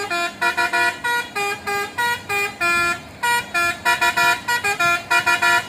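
Dump truck's basuri musical horn playing a tune as a quick run of short notes that step up and down in pitch.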